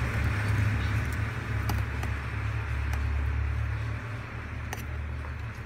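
Steady low background rumble, with a few faint clicks of a metal tool against the phone's frame and back cover.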